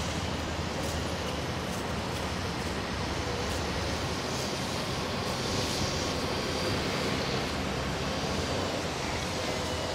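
Steady low rumble of distant city traffic, with no voices.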